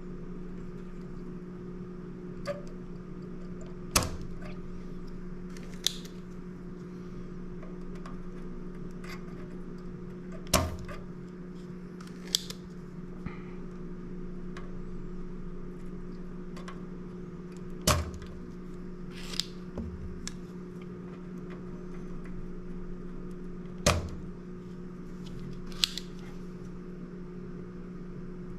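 Spring-loaded solder sucker (desoldering pump) snapping as its plunger is released to pull solder off the board, four loud snaps several seconds apart with lighter clicks between them, over a steady low hum.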